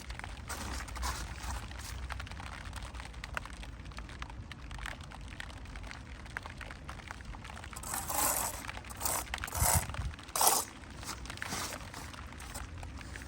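Gritty scraping and clinking of bricklaying work with trowel, mortar and bricks, with a few louder scrapes in the second half.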